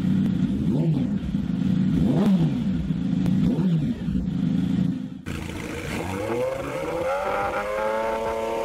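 Yamaha YZF-R6 inline-four engine revved in quick blips through an aftermarket exhaust, the pitch rising and falling sharply several times. After a sudden cut about five seconds in, another R6's engine note climbs and then holds at a steady high pitch.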